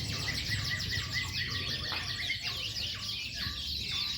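Many domestic canaries singing at once, a dense, continuous chorus of fast overlapping trills and chirps.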